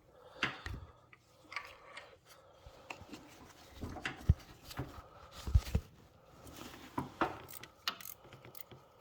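Hand tools and metal parts clinking and scraping while a car's starter motor is unbolted and worked loose from under the car, with irregular clicks and a few sharp knocks.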